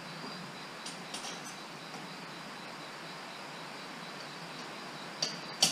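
Quiet room tone with a few faint clicks about a second in, then two sharp metal clinks near the end as hitch and plow hardware is handled.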